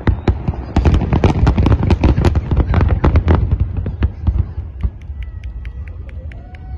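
Fireworks shells bursting in a rapid, dense barrage of bangs. About three and a half seconds in, the bangs thin out into sparse crackles as the glittering stars fall.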